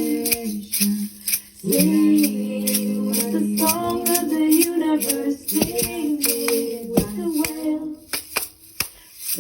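Wordless singing, long held and gliding notes, over a shaker rattled in a steady beat; the voice drops out toward the end, leaving mostly the shaker.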